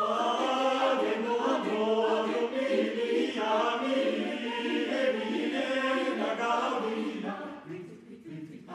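Mixed chamber choir of men and women singing a cappella, many voices together in a dense passage, fading out near the end.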